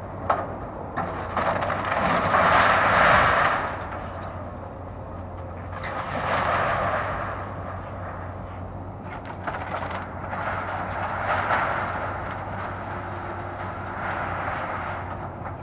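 Komatsu hydraulic excavator's diesel engine running steadily while its arm tears into a house's roof and walls, the wood and roofing cracking, crunching and scraping in several swells. The loudest crash of debris comes about two to three seconds in, with further ones around six, eleven and fourteen seconds.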